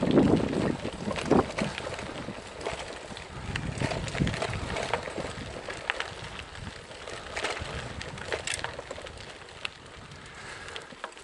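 Bicycle ridden slowly uphill on a gravel track: tyres crunching, with frequent small knocks and rattles from the bike and wind on the microphone. Loudest around the start and fading toward the end.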